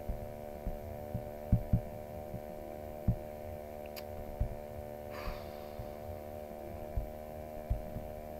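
Steady electrical hum on the recording microphone, with irregular soft low thumps. There is a single sharp mouse click about four seconds in.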